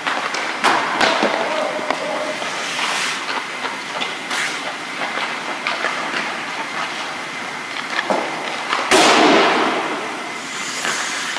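Ice hockey practice on an indoor rink: skate blades scraping the ice under frequent sharp clacks of sticks and pucks, with one loud, longer scrape of skates on ice about nine seconds in.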